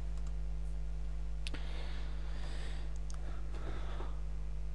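Computer mouse clicks, one about a second and a half in and a pair about three seconds in, over a steady low hum, with a soft breathy noise in between.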